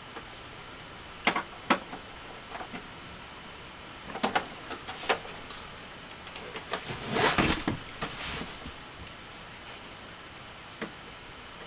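Xbox 360's plastic case being pried and pulled apart by hand: scattered clicks and snaps of the cover's clips, with a longer scraping clatter about seven seconds in.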